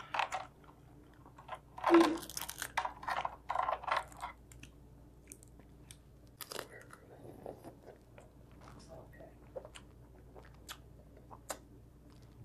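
Snow crab shells cracking and snapping as they are broken apart by hand, mixed with crunching and chewing. There is a dense run of crackling about two to four seconds in, then only scattered faint clicks.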